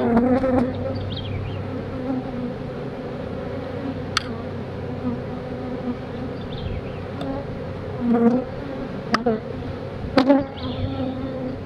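Honey bees from an open nuc box buzzing as a steady, even hum, with a few sharp clicks partway through.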